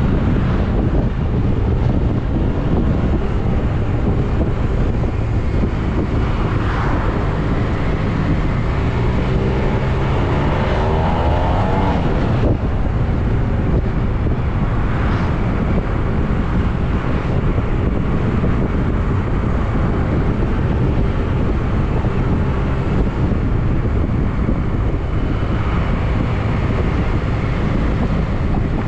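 Yamaha MT-09 three-cylinder motorcycle being ridden, heard under heavy wind noise on the microphone. About ten seconds in the engine note climbs for a couple of seconds and cuts off sharply, as when the throttle is opened and then shut for a gear change.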